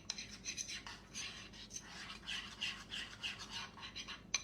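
A utensil scraping rhythmically around a bowl as icing is stirred to blend in red food colouring, about three strokes a second, with a sharp tap near the end.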